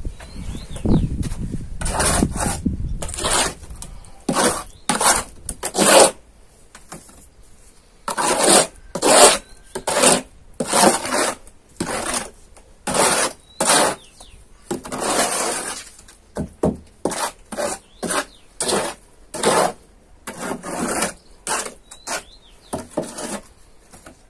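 Plastering trowel scraping and spreading fresh plaster across a wall, about one stroke a second in an uneven rhythm with short pauses between strokes.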